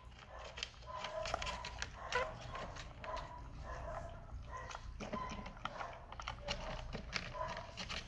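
A Persian kitten and a Siamese cat eating dry kibble from a plastic bowl: irregular crisp crunches and clicks of chewing, with short soft tonal sounds recurring every half second or so.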